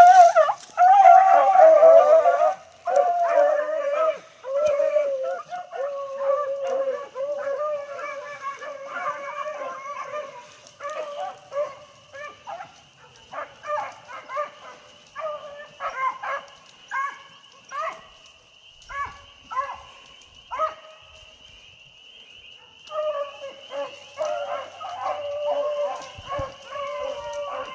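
Beagle hounds baying while running a rabbit's trail: long drawn-out bays at first, then a run of short, choppy barks, a pause of about two seconds near the end, and the baying picking up again.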